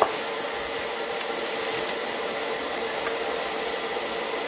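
A steady whirring hiss with a faint hum runs underneath, and light crinkling of bubble wrap comes from the plastic being pulled off a small ceramic heater and its power cord. A brief knock comes right at the start.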